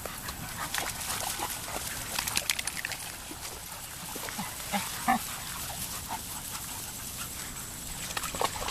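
Dogs making short, scattered noises close by as they move about, with a cluster of quick clicks about two seconds in.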